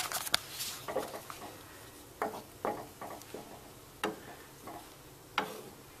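Light knocks and clicks, about eight of them at irregular spacing, from a wooden spoon and cooking pan being handled at the stove.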